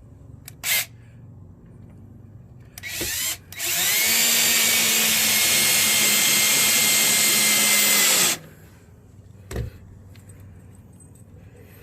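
Power drill: a brief blip, a short start, then a steady run of about four and a half seconds at constant speed that stops suddenly, followed by a single knock.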